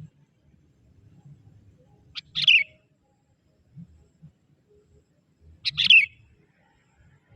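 Young sooty-headed bulbul (kutilang) calling: two short, loud chirping calls about three and a half seconds apart, a decoy-bird call meant to draw in wild bulbuls.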